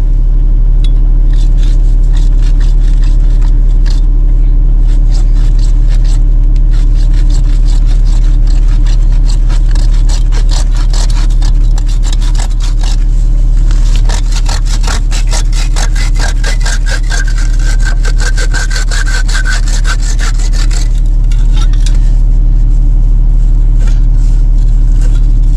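A hand saw cutting through a buried water pipe in quick, repeated back-and-forth strokes that grow heavier in the middle, over a steady low engine drone.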